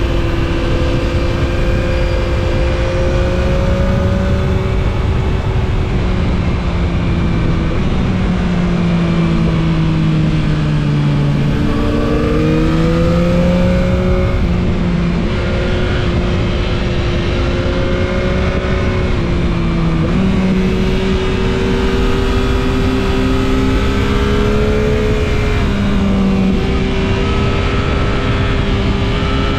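Yamaha MT-09 SP's 890 cc inline-three engine under way on the road. The engine note falls slowly about eight to eleven seconds in and climbs again just after, with another short dip near twenty seconds. Steady wind and road rush runs underneath.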